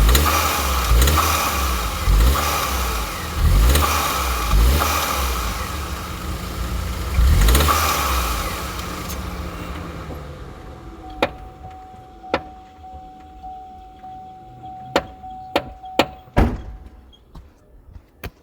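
Opel/Vauxhall Astra J engine revved in short repeated blips, each rising and falling in pitch, the car's owner recording it for a knocking noise. The engine sound falls away after about eight seconds, leaving a few sharp clicks and a faint steady tone.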